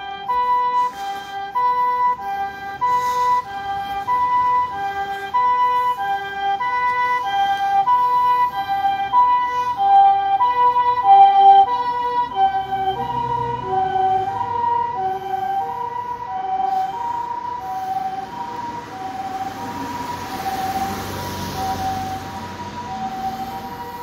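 Japanese ambulance's two-tone harmonic siren alternating a high and a low note about every half second. It grows louder as the ambulance approaches, is loudest as it passes about eleven seconds in, then drops slightly in pitch and fades as it moves away, with rushing road noise toward the end.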